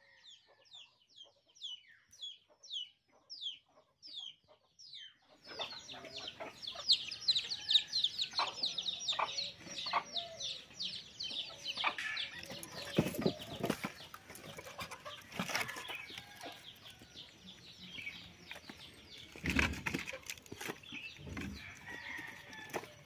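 Birds chirping in rapid, short falling notes, several a second. From about 13 s in, the sharp knocks of dry split firewood are heard as pieces are pulled off a woodpile and gathered into the arms, with the loudest knocks near 13, 15 and 19 seconds.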